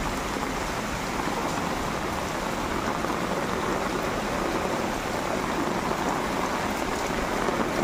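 Steady heavy rain pelting onto standing floodwater in a street, a dense even hiss of drops hitting the water's surface.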